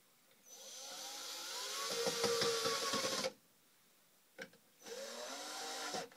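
Cordless drill driving a screw into the wood of a small birdhouse to fasten a hinge. It runs in two bursts: a longer one of nearly three seconds, its whine rising and then easing off, and a short one of about a second near the end.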